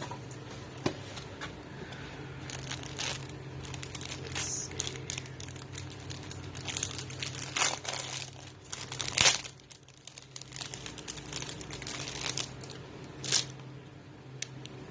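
Packaging being handled and unwrapped by hand: irregular crinkling and rustling with occasional tearing, the loudest burst about nine seconds in.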